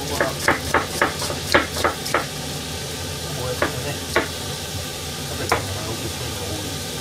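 Liquid sizzling and bubbling in a wok on the stove. A quick run of sharp clicks comes in the first two seconds, and three more follow, spaced out.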